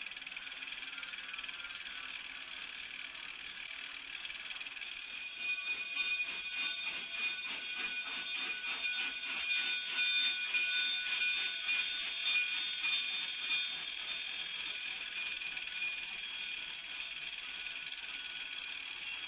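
K-36 narrow-gauge steam locomotive No. 488 chuffing as it pulls a train out. The exhaust beats grow louder about five seconds in and ease off again in the last few seconds, over a steady high-pitched chirring.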